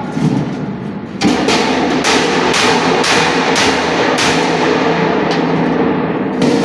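Hammer blows on a sheet-metal cable tray being bent into an elbow, a steady beat of about two strikes a second that starts about a second in.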